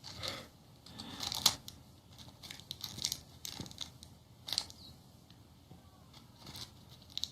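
Scattered light clicks and rustles from something being opened and small things being handled by hand, with the sharpest snaps about a second and a half in and again about four and a half seconds in.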